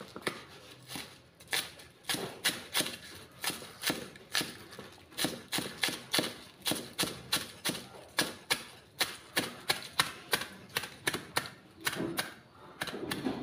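Cleaver chopping spring onions on a cutting board: a steady run of sharp knocks, about three a second.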